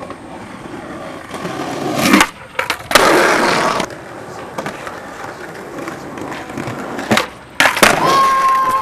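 Skateboard wheels rolling on concrete, then the tail snapping and the board scraping along the concrete for about a second. Sharp board cracks from landings and impacts come near the end.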